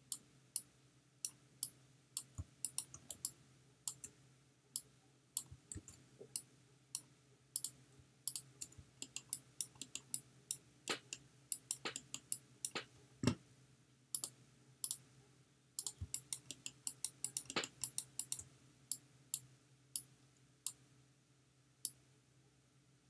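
Computer mouse and keyboard clicking irregularly, single clicks and quick clusters, over a faint steady low hum.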